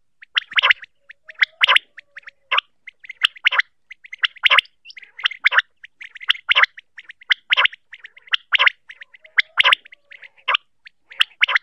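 Common quail calling: sharp, short notes repeated over and over, with a louder note about once a second and quicker, fainter notes between.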